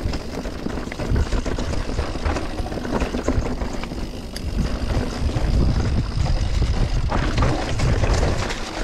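Mountain bike riding down a dirt bike-park trail: tyres rolling over dirt and bumps, the bike rattling with frequent short knocks, under a steady rumble of wind on the microphone.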